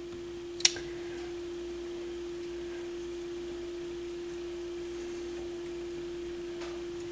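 A steady pure tone of middling pitch holds unbroken. One small sharp click comes about half a second in, from fingers prying at a tab inside the receiver chassis.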